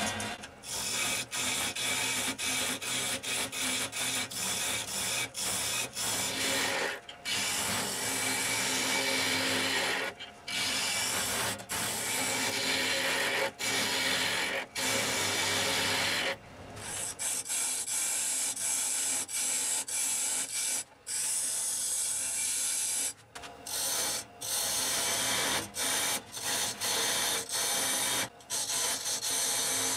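A steel turning tool scraping and cutting a large blank spinning on a wood lathe, a steady hissing scrape broken by many short gaps.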